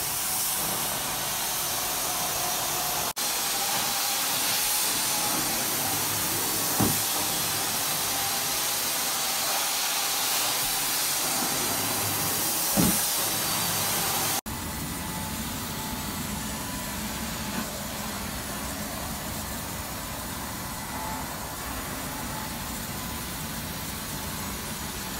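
Carpet extraction cleaner working wet carpet: the steady rushing hiss of its vacuum suction pulling water back up through the wand and hose. Two short bumps come partway through. The sound cuts out for an instant twice, and after the second break it is a little quieter and deeper, with a powered cleaning head on the carpet.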